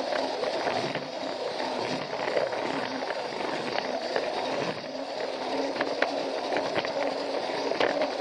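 Plarail toy train's small electric motor whirring as its wheels roll and rattle along plastic track, with scattered sharp clicks.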